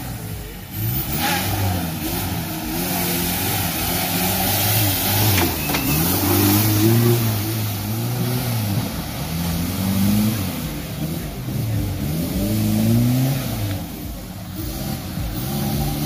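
Jeep CJ's engine revving hard, its pitch rising and falling again and again as it is driven through mud.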